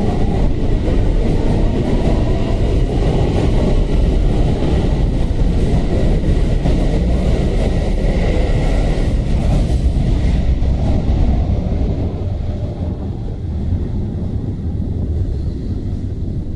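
Keikyu 1000-series electric train pulling out of the station and running past at close range, a steady loud rumble of wheels on rail. It gets somewhat quieter after about twelve seconds as the last cars go by.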